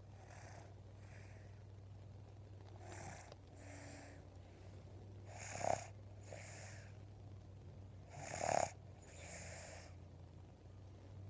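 Snoring: slow, rhythmic breaths in and out about every three seconds, with two louder snores around the middle.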